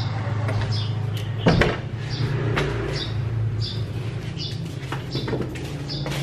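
Footsteps on a concrete floor, a regular tread at walking pace, over a steady low hum. About a second and a half in there is a single sharp knock, the loudest sound, and a lighter one a second later.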